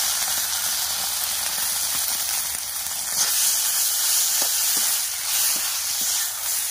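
Sliced vegetables stir-frying over a high flame in an iron kadhai: a steady sizzle, with a few light clinks and scrapes from the metal slotted ladle stirring them in the second half.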